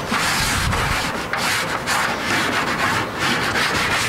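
Chalk being rubbed and stroked across a large drawing board in a continuous run of scraping strokes.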